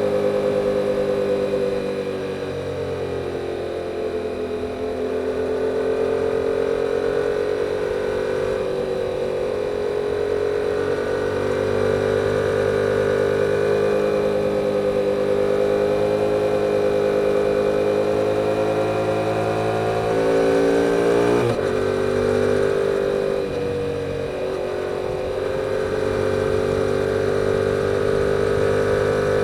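2022 Yamaha R7's parallel-twin engine through its stock exhaust, running under way with the rider's throttle rising and easing off. About two-thirds of the way through the pitch climbs, then breaks and drops sharply, as at a gear change.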